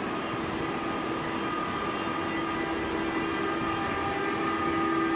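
Class 146 electric locomotive hauling a double-deck passenger train, rolling slowly into the platform with a steady whine of several tones over a low rumble, growing slightly louder as it nears.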